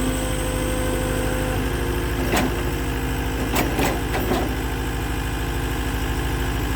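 Engine of the machine carrying the rented post-hole attachment idling steadily, with a few sharp knocks about two to four seconds in.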